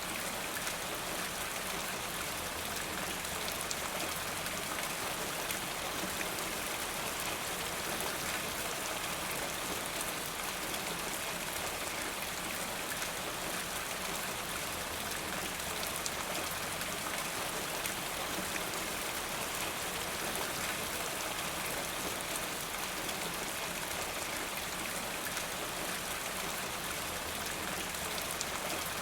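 Steady rain falling in a forest: an even hiss of rain with fine patter of drops on leaves and ground, unchanging throughout.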